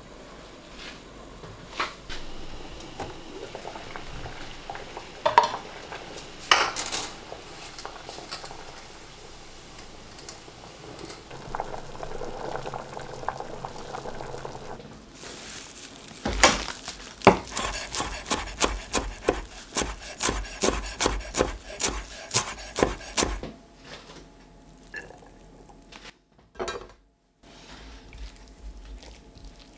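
Metal cookware sounds over a low steady hiss: scattered clinks at first, then a fast run of sharp clinks of a utensil against a stainless steel pot or pan for about seven seconds past the middle.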